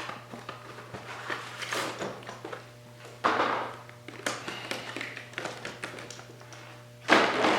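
A tool being handled on a workbench: scattered taps and clicks, with three louder rustling or scraping handling sounds, over a steady low hum.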